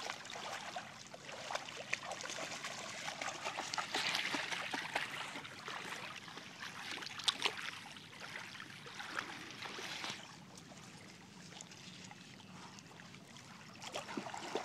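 Shallow water lapping and trickling over a pebble shore, louder in the first half and quieter near the end, with a few sharp ticks.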